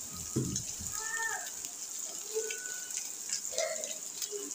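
Shredded chicken sizzling in oil in a frying pan, a steady hiss, with a few low knocks in the first second.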